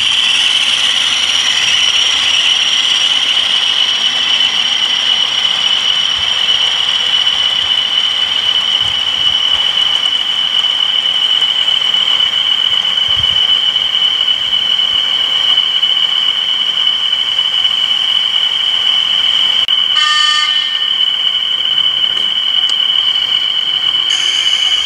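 DCC sound-fitted model diesel locomotives running, their sound decoders giving a steady high-pitched whistle. About 20 seconds in, a short horn toot cuts in.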